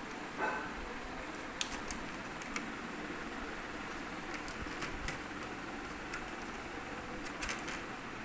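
Light clicks and taps of a plastic blister pack and small makeup items being handled and set down on a wooden dresser top, a few scattered through, over a steady room hiss.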